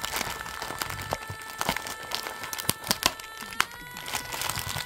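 White plastic packaging bag crinkling and rustling as hands pull it out of a cardboard box, with irregular sharp crackles.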